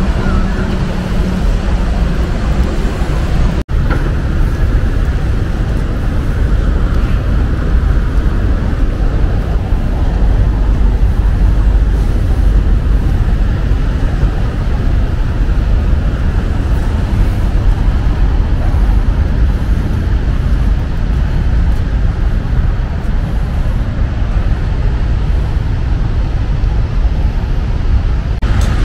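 Steady city street traffic noise from road vehicles, dense and weighted to the low end, with a brief break in the sound about three and a half seconds in.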